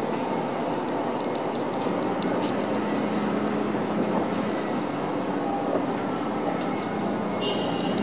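Heavy construction machinery diesel engines running, a steady drone with a low hum, and a few faint ticks of site work over it.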